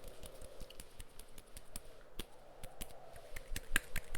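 Quick, irregular tapping on objects close to the microphone, a few taps louder near the end, over a steady wind sound in the background.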